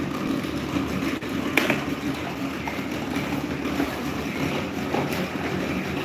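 Electric fan running: a steady rush of moving air, with a few faint clicks.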